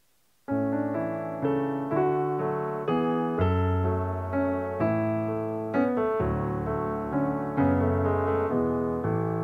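Background piano music, chords and a melody played at a gentle pace, starting suddenly about half a second in.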